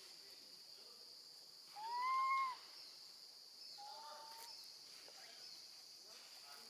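Baby monkey calling for its mother: a loud, clear, rising then held cry about two seconds in, then a shorter, lower, fainter call a moment later, over a steady high insect drone.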